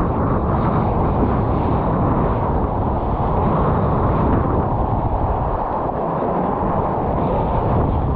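Strong wind buffeting the camera microphone in a steady, heavy rumble, mixed with the rush and splash of surf around a kiteboard riding through whitewater.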